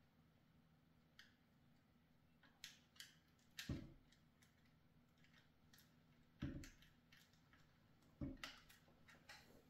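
Small plastic model parts and thin lighting wires handled by hand on a work surface: faint scattered clicks and three soft knocks spread through an otherwise near-silent stretch.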